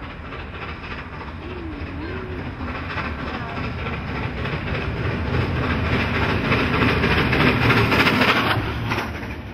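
NSW C32 class 4-6-0 steam locomotive 3237 working a train past at close range, its exhaust and running gear growing steadily louder as it approaches. It is loudest about eight seconds in as it passes directly below.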